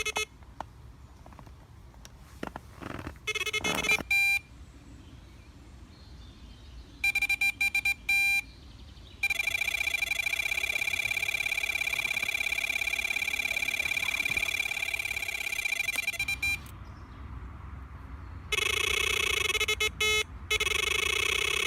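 Electronic carp bite alarms screaming. A few short bursts of high-pitched beeps come first, then an unbroken high tone lasting about seven seconds, the sign of a carp running off with line. After a short pause a second alarm with a lower tone sounds continuously near the end.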